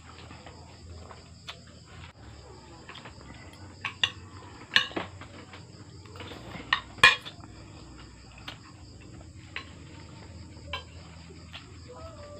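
Plates and a spoon clinking at a meal in scattered clicks and knocks, the loudest about seven seconds in. A steady high chirring of crickets runs underneath.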